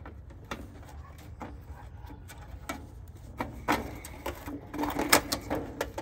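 Scattered clicks, taps and scrapes of gloved hands working low-voltage thermostat wires free inside an air-conditioner condenser's electrical compartment. They come thicker in the second half, with one sharp click about five seconds in.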